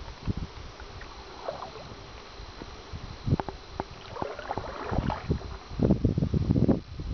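Canoe paddling on calm water: paddle splashes and water dripping, with irregular low thumps that are loudest near the end.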